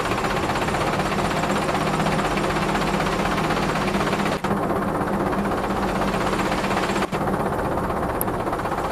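Mitsubishi Colt Diesel HD 125PS dump truck's diesel engine running steadily with a rattly clatter while the hydraulic hoist raises the dump bed to tip its load.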